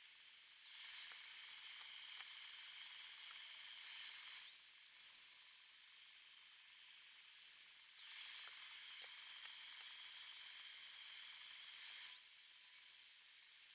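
Electric plunge router with a flush-trim bit running at a high whine while it trims the overhanging edges of 3 mm HDF boards glued onto a speaker cabinet. Twice, from about a second in to four seconds and again from about eight to twelve seconds, the pitch drops slightly and a rougher cutting noise rises as the bit bites into the board, with the free-running whine in between.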